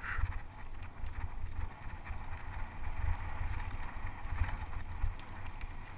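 Wind buffeting the microphone of a mountain bike's camera as the bike rolls along a dirt track, a gusting low rumble over the hiss of tyres on the ground, with a few small rattles of the bike.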